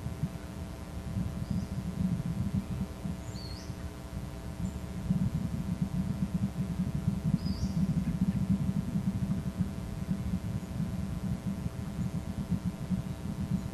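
Steady low rumble with a constant hum over it, and a few short, high, rising bird chirps in the first eight seconds.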